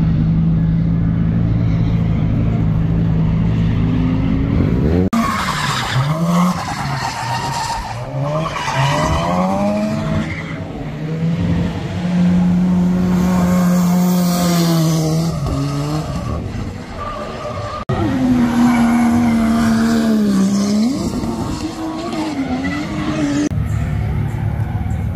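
Drift cars' engines running hard, holding revs and then rising and falling as they are blipped through the drifts, with tyre squeal; the sound changes abruptly a few times.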